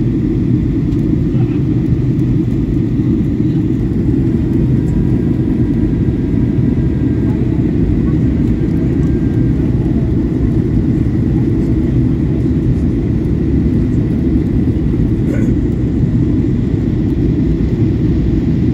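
Steady cabin noise inside a Boeing 737 airliner in flight: the low, even rush of engines and airflow heard through the fuselage, with a faint high steady whine on top.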